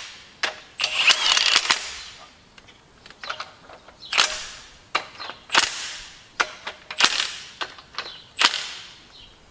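Cordless impact wrench hammering on bolts in short bursts, a longer one about a second in, then roughly every second and a half.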